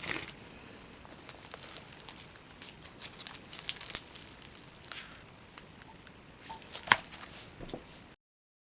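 Faint handling noises: scattered crinkling and small clicks, busiest about three to four seconds in, with one sharp click near seven seconds, before the sound cuts off.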